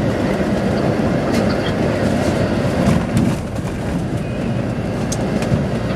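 Steady low rumble of a moving intercity bus's engine and road noise, heard from inside the passenger cabin, with a few light clicks and rattles.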